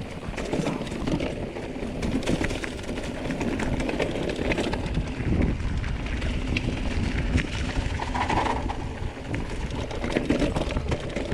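Canyon mountain bike rolling over a rocky, leaf-covered trail, its tyres crunching on loose stones with frequent knocks and rattles from the bike. A low rumble of wind on the microphone runs underneath.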